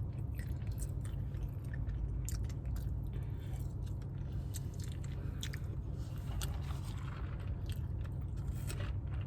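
A person chewing and biting food close to the microphone, with many small scattered mouth clicks and crunches, over a steady low rumble.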